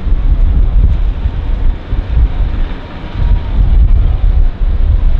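Van's RV-8 aerobatic plane's single piston engine and propeller running through a dive and pull-out, with a faint tone that bends in pitch about halfway through. Heavy wind buffeting on the microphone makes a loud rumble.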